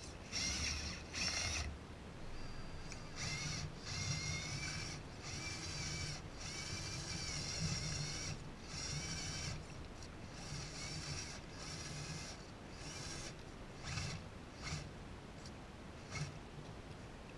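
RC crawler truck's electric motor and gear drivetrain whining in a string of short throttle bursts, each lasting under a second to about a second and a half.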